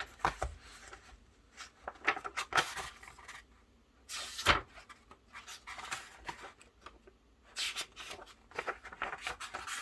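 Paper rustling and soft clicks as picture-book pages are handled and turned, in short irregular bursts with the loudest rustle about halfway through.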